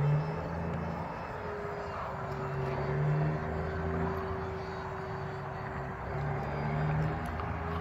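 Radio-controlled model Saab Viggen in flight, its motor giving a steady whine that dips slightly in pitch and rises again near the end, over a broad rushing hiss.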